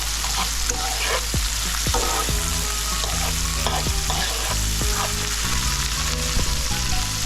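Onion and sweet pepper frying in a pan, a steady sizzle with occasional light knocks of a stirring utensil.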